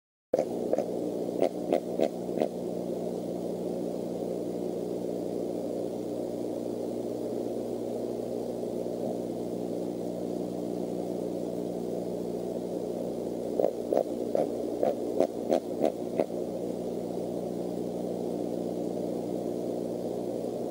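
Steady electrical hum made of several even tones, over a light hiss, from a night-vision nest camera's audio. Two clusters of short, sharp clicks break through it, one just after the start and another a little past the middle.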